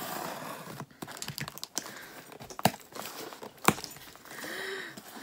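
Scissors blade slitting the packing tape on a cardboard shipping box, then the box flaps being pulled open with crinkling and tearing, and two sharp clicks about a second apart midway.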